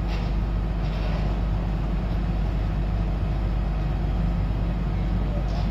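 Diesel engine of a Sunward rotary bore-pile drilling rig running steadily, a low even drone.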